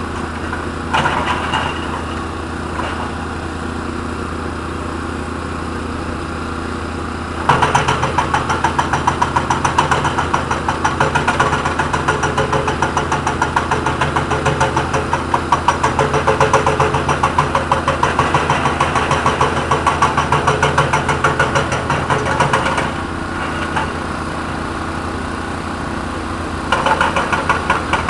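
Cat 320 excavator's diesel engine running steadily, then about seven seconds in its hydraulic hammer starts pounding rapidly for some fifteen seconds, stops, and starts again near the end.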